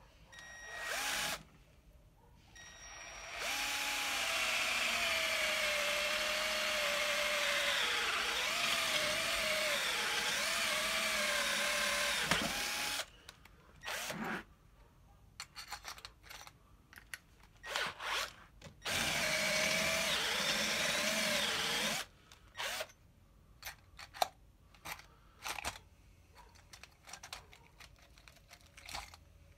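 Electric hand drill boring holes through the underside of a bicycle's metal bottom bracket shell. A short burst comes first, then a run of about nine seconds with the motor's pitch wavering and dipping as the bit bites. After some shorter bursts there is another run of about three seconds, and scattered short clicks and knocks come near the end.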